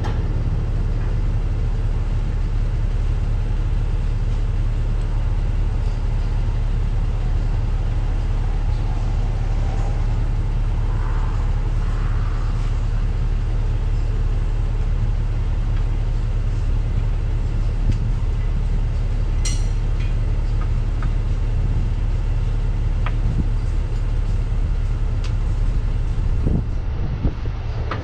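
A steady, loud low engine drone, like an idling engine or generator running nearby, with a few light metallic clicks of hand tools.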